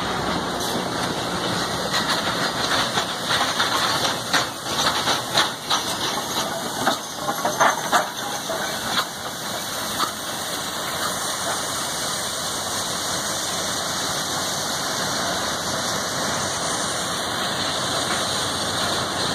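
Train cars passing close, with wheels clattering and squealing on the rails, then a steady hiss from the Nickel Plate Road 765 steam locomotive over the last half.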